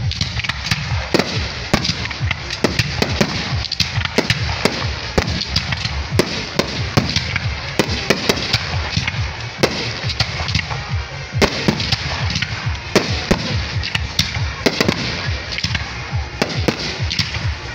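Aerial fireworks display: a continuous barrage of shell bursts and bangs, several a second, over a steady crackling haze.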